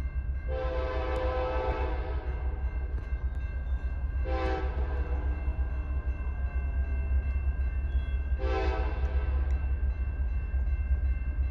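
Freight locomotive air horn sounding for a grade crossing: a long blast of about two seconds, a short blast, then another long blast, each a chord of several notes. A steady low rumble runs underneath.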